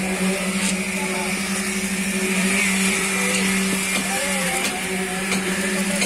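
Concrete-pouring machinery running with a steady drone and a constant low hum, with faint voices now and then.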